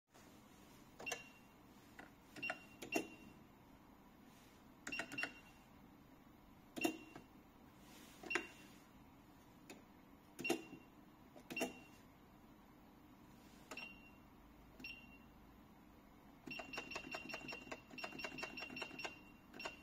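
Keys on a 686A 48-key cash register keyboard being pressed one at a time, each press giving a click with a short high beep. After about a dozen separate presses a second or two apart comes a quick run of presses, several a second, in the last few seconds.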